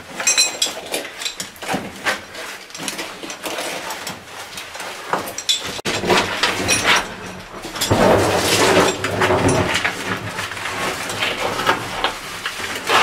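Cavers crawling over loose stone rubble in a tight cave passage: stones shifting and clattering, with bodies and gear scraping against rock. It is irregular throughout and grows denser and louder about two-thirds of the way in.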